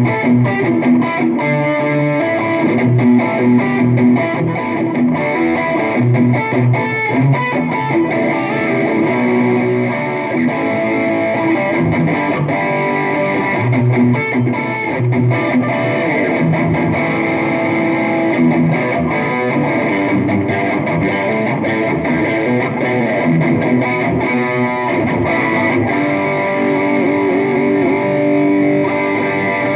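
Stratocaster-style electric guitar played through a Mooer GE200 multi-effects processor and amplifier, heard from the amp through a phone microphone: a continuous run of notes and chords without a break.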